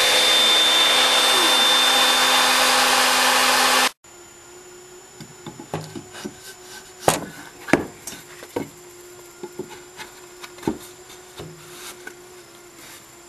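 Home-made CNC router's spindle running and cutting wood, a loud steady hiss with a steady whine, cut off abruptly about four seconds in. Then a string of sharp knocks and clicks as wooden pieces are placed and set on the machine table, with the two loudest a little past the middle, over a faint steady hum.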